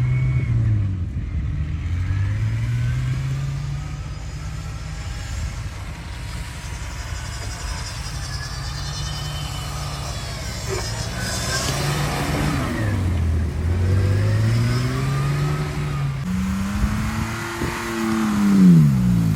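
Jeep Wrangler's engine revving up and falling back again and again as it spins donuts in deep snow, reaching its highest revs near the end.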